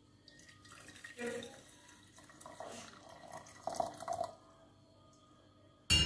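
Hot water poured from a kettle into a porcelain teapot over loose black tea, a splashing pour whose pitch rises as the pot fills; the pour stops about four seconds in. Near the end a sharp clink as the kettle is set back down on the stove grate.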